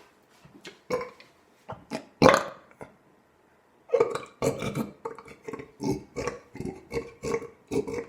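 A man belching on purpose, with the loudest belch about two seconds in, then a run of short, rapid belches from about four seconds on.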